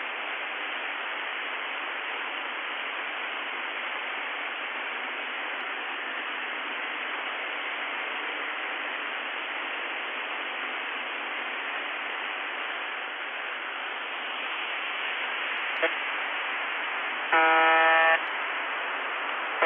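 Shortwave radio static on the UVB-76 'Buzzer' frequency, a steady hiss heard through a receiver. Near the end, the station's buzzer tone sounds once for under a second, and a second buzz starts at the very end: the station back on its usual broadcast after the voice message.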